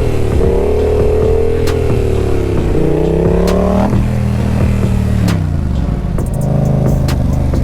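Yamaha XSR700's 689 cc parallel-twin (CP2) motorcycle engine running under throttle. Its pitch wavers and climbs until about four seconds in, then drops sharply, falls again a second later, and settles to a lower, steady note.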